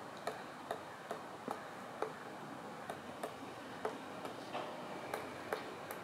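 Pileated woodpecker pecking at a tree trunk: single sharp knocks of its bill on the wood, about two to three a second and unevenly spaced, with a short pause a little after two seconds in.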